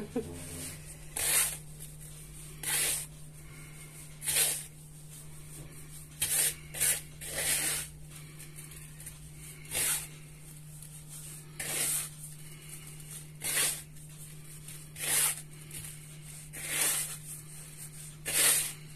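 Hands rubbing oiled semolina between the palms in a wooden bowl: a dry rasping swish repeated about every one and a half to two seconds, over a steady low hum.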